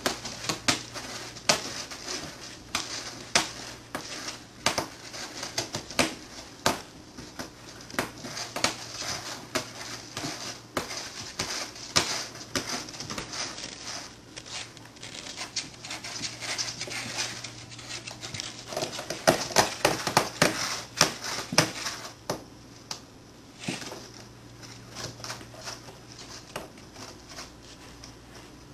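Persian kittens clawing and pawing at a cardboard box, giving irregular scratching, rustling and tapping on the cardboard, busiest about two-thirds of the way through.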